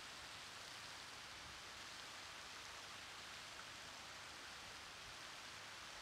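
Faint steady splashing hiss of a fountain's water jets falling into its basin pool.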